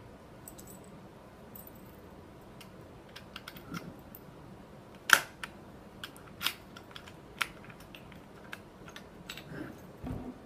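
A KEYLEX KL-4000 mechanical code lock being opened with its emergency key: scattered sharp clicks as the key goes into the cylinder and the lock works. The loudest click comes about five seconds in, with lighter ones around it.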